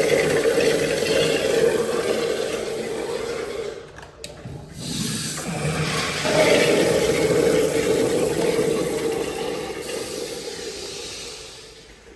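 Kohler public-restroom fixture flushing: loud rushing water that dies down about four seconds in, with a click, then surges again and gradually fades out near the end.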